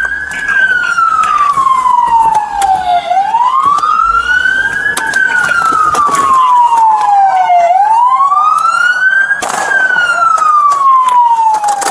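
Police car siren wailing loudly, its pitch slowly rising and falling in a cycle of about four and a half seconds. A sharp crack comes about three-quarters of the way through.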